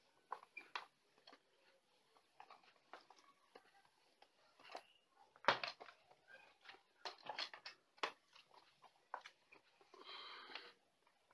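Faint, irregular clicks and taps with a short rustle near the end: hands handling the phone and the cotton T-shirt.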